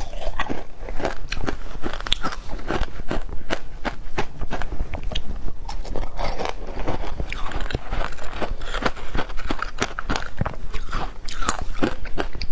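Close-miked crunching and chewing of frozen passion fruit ice, a dense run of sharp, irregular crunches.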